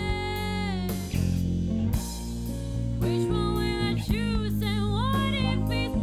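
A band's song playing: a sung lead line over bass guitar, drums and plucked guitar. The voice drops out for about two seconds, a second in.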